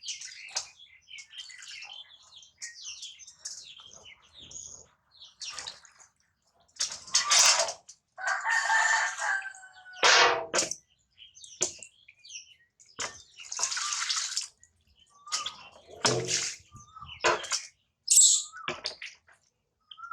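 Water splashing and sloshing in a small bath in irregular bursts, with some short, high, chirping animal calls among them.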